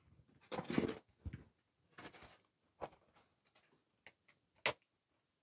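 Scattered light clicks and rustles of hands working at a cardboard box and its plastic strapping band, with a brief rustle about half a second in and a sharper click about four and a half seconds in.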